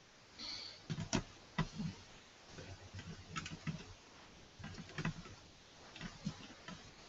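Irregular small clicks and light knocks of a screwdriver driving small screws into the metal mounting bracket of a 2.5-inch laptop hard drive.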